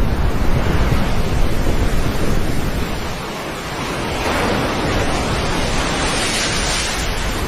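Surf washing onto a shore, with wind buffeting the microphone as a heavy low rumble. A wave comes in with a louder hiss from about halfway through until near the end.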